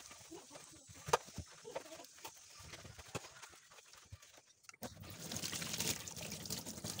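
A stainless-steel sink being scrubbed with scouring powder: scattered light scrapes and knocks. About five seconds in, tap water starts running into the sink to rinse it.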